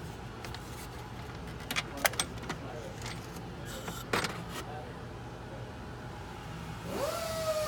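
A handful of sharp clicks and clinks from intake parts and clips being handled in an engine bay, over a steady low hum.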